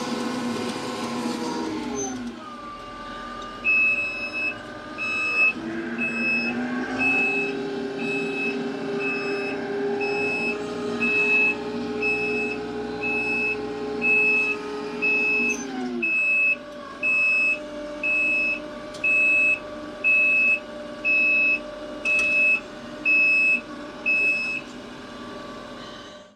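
TYM T754 tractor's diesel engine running, with its reverse alarm beeping steadily about once a second as it backs up. The engine drops in speed about two seconds in, picks up again around six seconds and settles back down past the middle.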